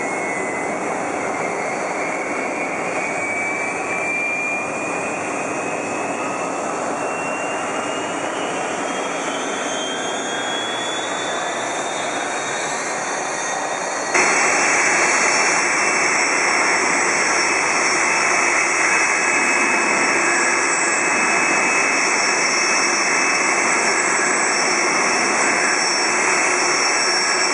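Boeing 747-400's Rolls-Royce RB211 turbofans during engine start, a whine rising slowly and steadily in pitch over a steady jet roar. About halfway through, the sound changes abruptly to a louder, steady idle roar with a high whine.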